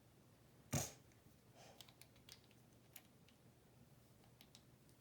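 Lego bricks being handled and pressed together: one louder knock or rustle just under a second in, then scattered light plastic clicks.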